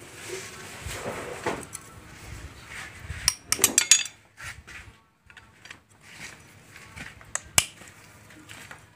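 Steel hand tools clinking and scraping on an engine block as a socket on a long extension bar is worked on the timing-chain damper bolts: scattered metallic clicks, a quick run of clicks a few seconds in, and a sharp clink near the end.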